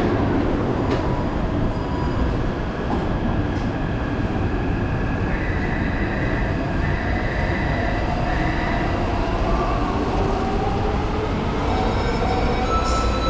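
Taipei Metro train running: a steady rumble of wheels and running gear heard inside the car, with a faint electric motor whine that rises in pitch in the second half.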